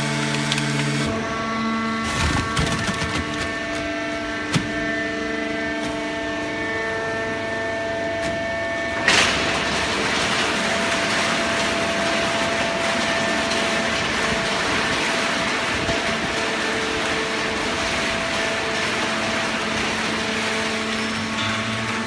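Automatic horizontal baler running: a steady hum with several held tones, a few knocks early on and a loud clank about nine seconds in, after which a steady rushing noise joins the hum.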